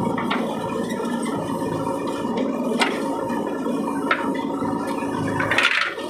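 JCB 3DX backhoe loader's diesel engine running steadily while loading a truck, with a few sharp clicks over it. The sound breaks off briefly near the end.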